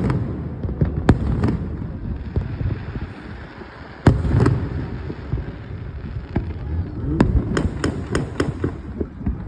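Fireworks display: sharp bangs and cracks over a continuous low rumble, with one strong bang about four seconds in and a quick run of cracks near the end.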